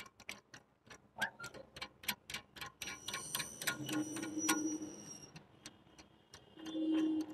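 Irregular light clicks and taps of a plastic toilet-seat hinge bolt and its nut being handled and fitted into the hole of a ceramic toilet pan.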